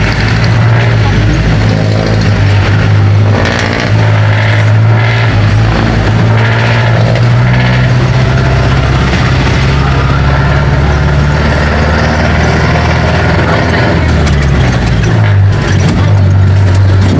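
Jeepney's diesel engine running under way, a loud low drone with road rumble heard from inside the open passenger cabin; the engine note dips briefly about fourteen seconds in, then picks up again.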